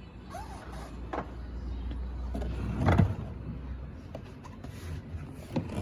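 Clicks and knocks from handling a Makita 438 wet/dry dust extractor before it is switched on, over a low steady hum that stops at the loudest knock, about three seconds in.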